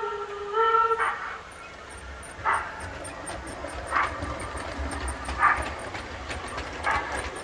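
Short dog barks or yips repeating evenly about every second and a half, played back as a sound test of a small add-on MP3 player. A held pitched tone cuts off about a second in, just as the first bark sounds, and a low hum runs beneath.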